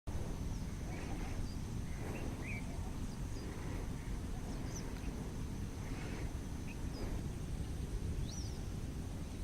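Several birds calling outdoors: a few short, harsh calls and scattered faint high chirps and rising whistles, over a steady low rumble and a thin constant high-pitched tone.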